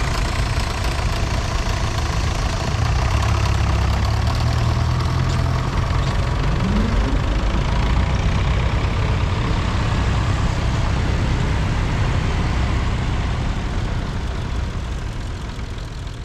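Vintage tractor engines running as tractors drive past one after another; about six and a half seconds in, one engine's pitch rises as it revs. The sound fades out near the end.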